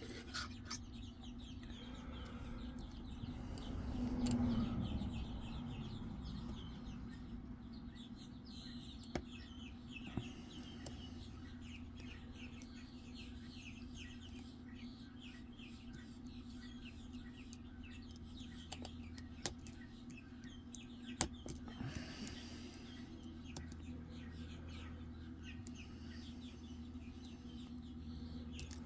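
Faint metallic ticks, scratches and sharp clicks of a hook pick working the pins of a Medeco lock core under tension, the pins being lifted and rotated one at a time, over a steady low hum.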